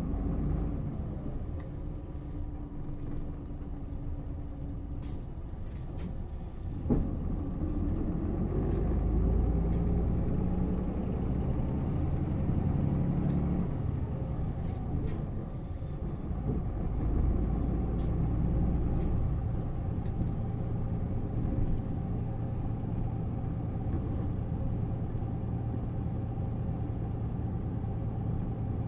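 City bus engine heard from inside the cabin, its note rising as the bus pulls away and accelerates, with a sharp click about seven seconds in. In the second half it settles into a steady hum.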